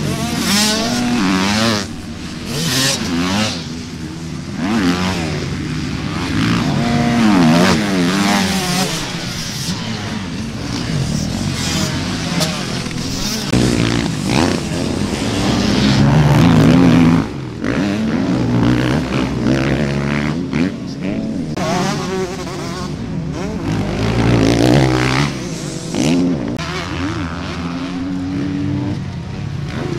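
Motocross dirt bike engines revving hard and backing off as the bikes race, their pitch rising and falling over and over. Several bikes are heard in turn, and the sound shifts abruptly a few times.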